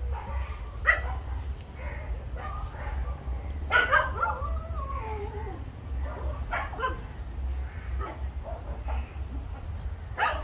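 Dogs barking and yelping at intervals, with one longer whine about four seconds in that slides down in pitch.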